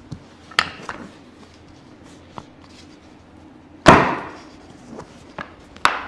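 Sharp clicks and knocks, with one loud knock about four seconds in that rings on and fades over about a second.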